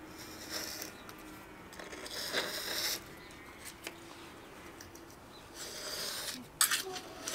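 A utility-knife blade scraping old mastic off the edge of a polished granite sink, in three short spells of scraping with a couple of sharp clicks near the end.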